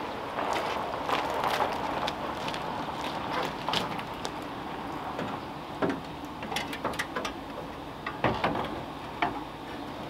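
A radiator being worked down into the front end of a 1934 Ford: rustling and scraping at first, then a run of sharp metal knocks and clanks in the second half as it meets a tight fit.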